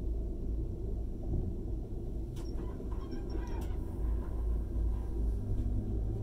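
ICE high-speed train running, heard inside the passenger car: a steady low rumble of wheels and running gear. A few faint clicks and a brief high sound come through a little after two seconds in.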